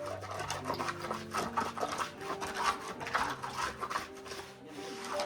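Repeated scraping strokes of a steel hand trowel on a concrete floor slab, over background music.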